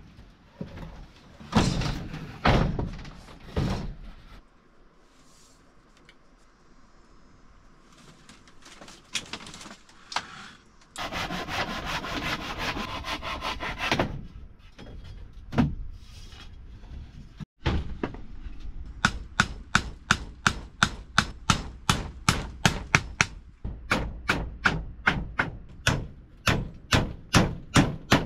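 Hand work with a tool: a few scattered knocks, then a few seconds of rough rubbing or scraping. In the second half comes a long, even run of sharp knocks, about two to three a second.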